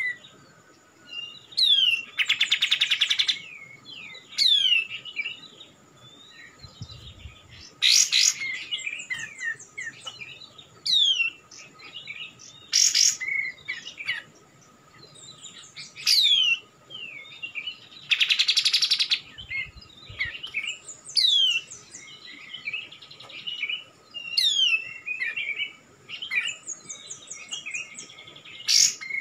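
Kapas tembak, a bulbul, calling over and over: quick falling whistles and chattering notes, with two longer harsh rattling calls, about two seconds in and again near the middle.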